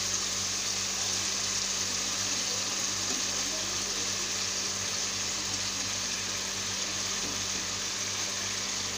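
Tomatoes and oil sizzling with a steady hiss in a kadhai on the gas flame, the tomato masala cooking down while stuffed bitter gourds are laid on top.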